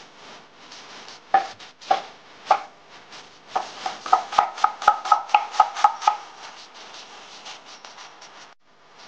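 Cleaver chopping a red onion on a wooden cutting board: three single chops, then a quick run of about four chops a second with a short metallic ring on each, easing into lighter cutting near the end.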